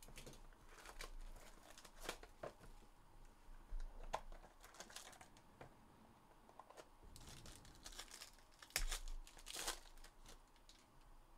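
Faint crinkling and tearing of a foil trading-card pack wrapper from a 2022-23 Panini Obsidian hobby box as the pack is handled and opened, with scattered light clicks of the cardboard box being handled.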